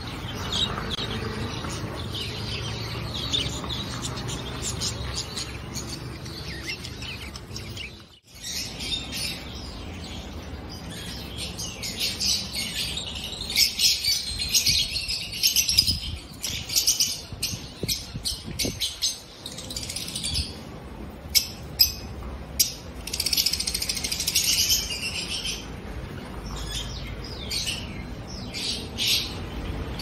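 A dense chorus of many caged finches and lovebirds chirping and twittering, high sharp chirps overlapping constantly. There is a brief gap about eight seconds in, and a few louder, piercing chirps stand out in the second half.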